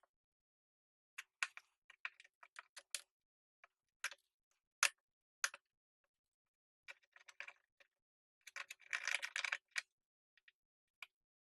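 Scattered light clicks and taps, with a denser stretch of scraping about nine seconds in, as a soldering iron tip works melted plastic over a metal mesh patch on a plastic sprayer tank.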